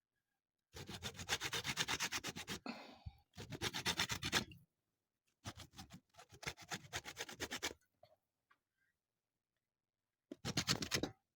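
Lemon peel being grated on a hand grater: rapid scraping strokes in four bursts, with short pauses between them.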